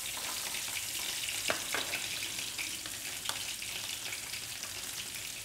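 Chopped onion sizzling and crackling in hot oil in a nonstick frying pan. A few sharp clicks of the spatula against the pan come through during the first half.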